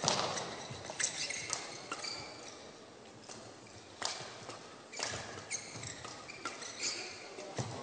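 Badminton doubles rally: a string of sharp racket strikes on the shuttlecock, roughly one a second with a lull about three seconds in, and short high squeaks of shoes on the court floor between them.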